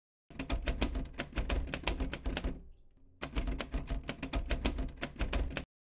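Manual typewriter keys clacking in rapid strikes, in two runs with a brief pause about halfway.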